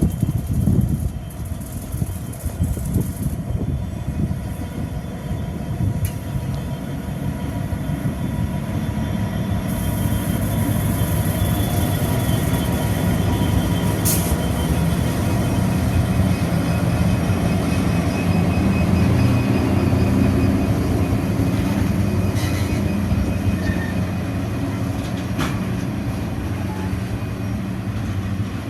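Coal train pulling away behind NSW 82 class diesel-electric locomotives: a steady low engine drone that swells in the middle, with the wagons rolling on the rails and a few sharp clicks.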